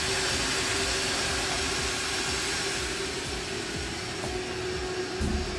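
Steady whirring of a Zbaitu S60 laser engraver's cooling fans, air-assist pump and exhaust ventilation, with a steady hum under it. About three seconds in the hiss softens a little as the cabinet's glass front is lowered over the machine.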